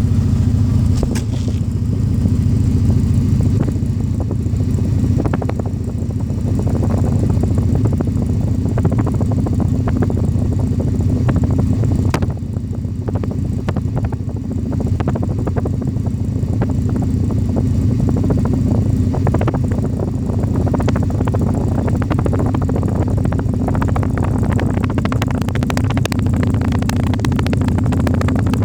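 Alfa Romeo Spider's 2.0-litre twin-cam four-cylinder engine running, its exhaust giving a steady, deep rumble.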